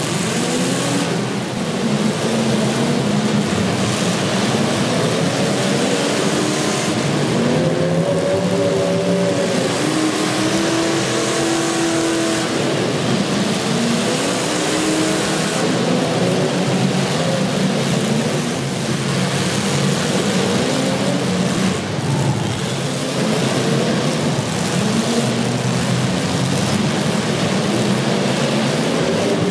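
Demolition derby cars' engines revving together, several pitches rising and falling over one another at a loud, steady level.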